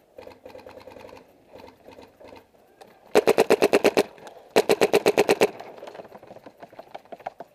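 Paintball marker firing two rapid strings of about ten shots a second, each about a second long, close and loud, a little after three seconds in and again about a second later. Fainter paintball shots pop in quick runs before them.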